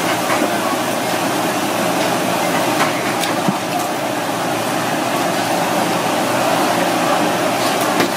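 Steady background noise with a few light clicks and scrapes from a knife scaling a red snapper on a plastic cutting board.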